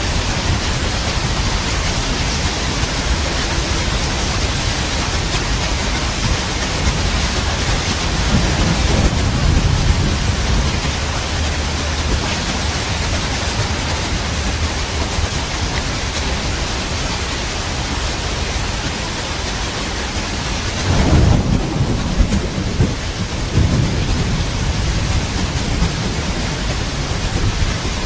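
Steady heavy rain with rolling thunder: low rumbles swell around a third of the way in, and a louder thunderclap rumbles about three quarters of the way through.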